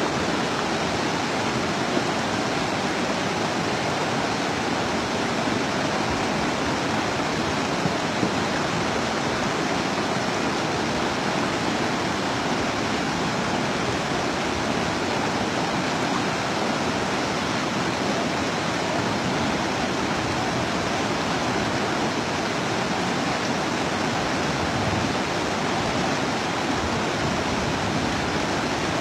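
Steady rushing of a swollen, muddy river in flood, its fast torrent running loud and unbroken.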